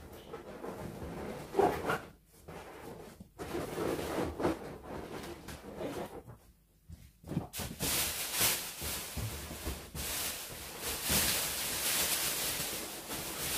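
Latex balloons being handled and fitted into a balloon garland on a metal hoop, rubbing against one another in uneven bursts. From about eight seconds in there is a louder, hissier rustle as more balloons are gathered up.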